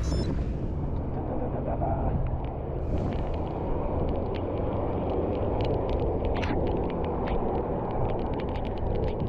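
Steady wind noise on the microphone of a cyclist riding on a road, mixed with traffic. From about three seconds in come many scattered sharp ticks.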